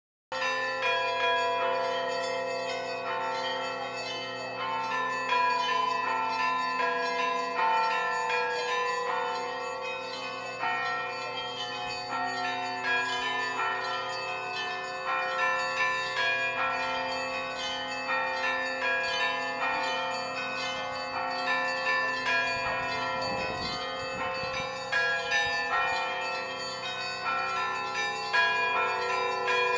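Russian Orthodox church bells of St. Sophia Cathedral ringing in a continuous peal: rapid strikes of small bells over the long, sustained hum of larger bells. The ringing cuts in abruptly a fraction of a second in.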